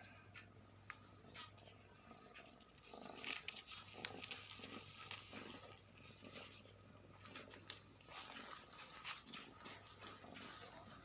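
Faint rustling, scratching and light clicks of a pet cat playing on its own, busiest after the first few seconds, with one sharper click near the end, over a low steady hum.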